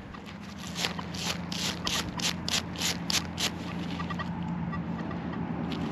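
Quick rubbing or scrubbing strokes, about three or four a second, that stop about halfway through, over a low steady hum: dirt being cleaned off a freshly dug aluminium key tag so it can be read.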